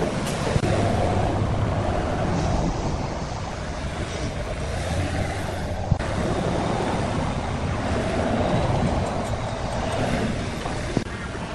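Komatsu forklift engine running steadily while it lifts and carries a wooden cable drum, its low drone swelling twice, with a single sharp click about six seconds in.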